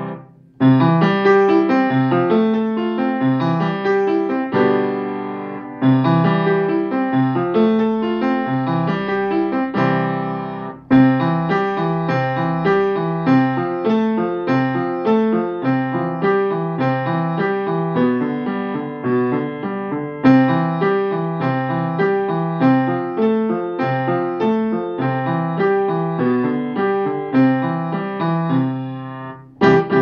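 Upright piano played by a child: a quick run of many notes in phrases, broken by brief pauses, the deepest just before 11 seconds and near the end.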